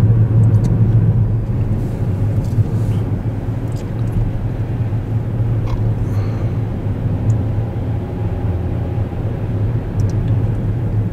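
Car driving along a highway: steady engine and tyre rumble from inside the moving car.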